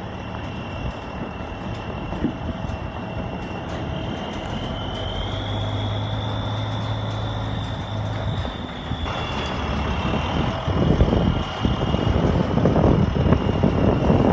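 Semi truck's diesel engine running steadily, with a high whine that rises in pitch for a few seconds and settles back. From about ten seconds in, wind gusts buffet the microphone.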